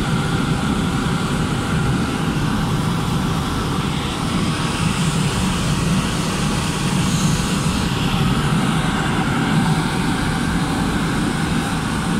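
Riello RS-series modulating gas burner firing on test: its flame and combustion-air fan run with a steady, even rushing sound.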